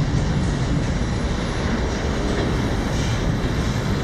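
Steady low rumbling noise with no clear beginning or end.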